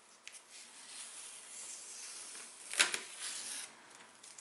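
Masking tape being peeled off a painted plastic model deck: a long crinkly tearing hiss, with a sharp click about three seconds in.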